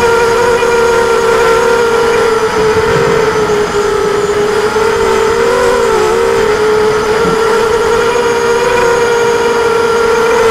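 Immersion RC Vortex quadcopter's brushless motors and propellers whining steadily in flight, the pitch wavering briefly about halfway through.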